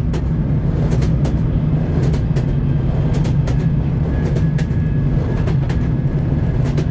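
Train wheels clacking over rail joints above the steady low rumble of a moving train, with a faint thin whine around the middle.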